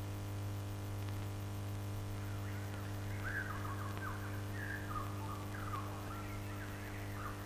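Birds chirping in short, irregular calls, starting about two seconds in, over a steady low hum from the old soundtrack.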